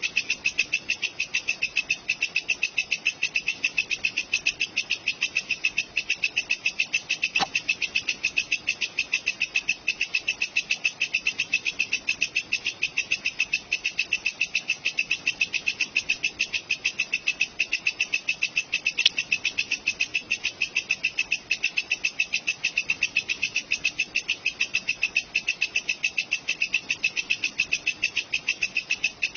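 Walang kecek, a bush cricket, stridulating in a fast, even, unbroken train of sharp high-pitched chirps.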